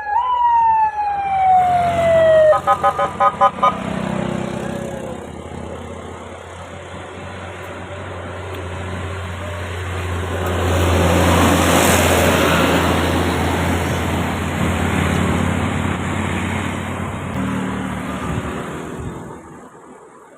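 Tour bus's 18-trumpet telolet musical air horn: a long tone sliding downward, then a quick run of short staccato blasts in chords. Then the bus's engine runs, with a rising noise that peaks about halfway through and fades away near the end as the bus goes by.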